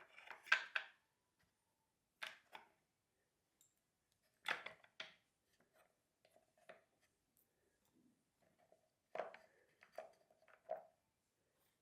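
Stamps being set down and fitted into a wooden desk tool box: a few light clicks and knocks, mostly in pairs, with quiet gaps between.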